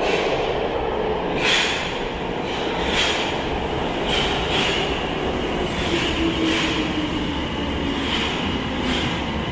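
Tokyo Metro Marunouchi Line 02 series subway train running along the platform: a steady rumble with wheels clacking over rail joints every second or so, a high wheel squeal, and a low whine that falls in pitch about two-thirds of the way through.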